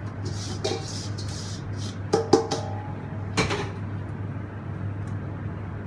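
Salt-and-sugar cure mix hissing as it is shaken out of a stainless steel bowl, then the bowl is knocked three times, ringing with metallic tones, two close together and one about a second later. A steady low hum runs underneath.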